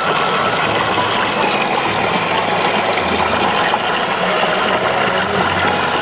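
Water of a shallow stream running steadily over rocks and stones, heard close up.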